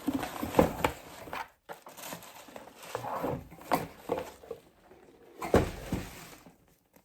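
A gift box being worked open by hand: irregular scrapes, knocks and rustles of the packaging, with brief pauses.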